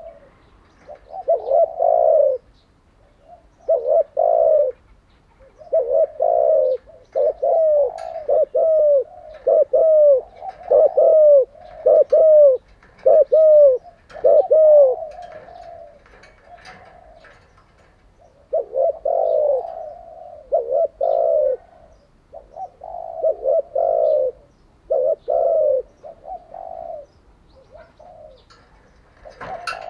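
Spotted dove cooing: phrases of low coo notes, each note bending down in pitch, repeated over and over, with a pause of a few seconds about halfway through.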